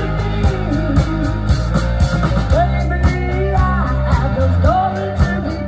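Live rock band playing: electric guitars, bass and drums with a woman singing over a steady beat.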